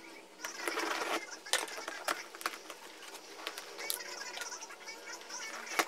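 Corrugated cardboard box being opened by hand: packing tape cut and pulled and the flaps folded back, giving irregular rustles, scrapes and sharp crackling clicks, the sharpest about a second and a half in and just before the end.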